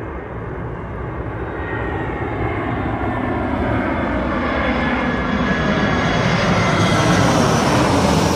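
Twin-engine jet airliner on landing approach flying low overhead, its engines a steady roar that grows louder as it closes in, with a whining tone sliding slowly down in pitch as it passes.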